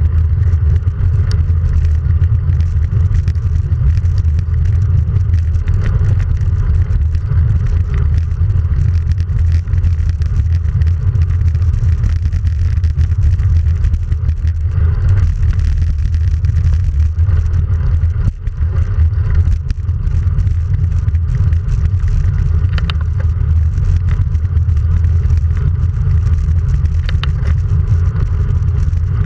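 Steady, loud wind buffeting the microphone of a handlebar-mounted action camera on a road bike riding along an asphalt road, mixed with tyre rumble; a deep, unbroken rumble with a couple of faint clicks near the end.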